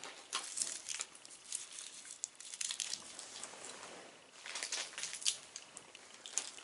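Plastic snack wrapper crinkling as it is handled and pulled at, in several bursts of rustling with short pauses between.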